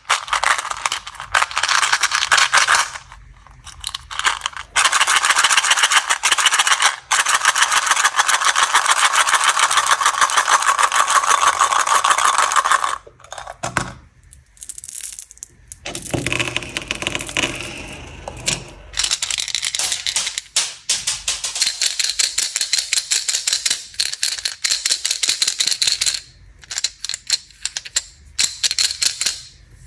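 Plastic candy packaging being handled: rapid crinkling and rattling in several long stretches, broken by short pauses.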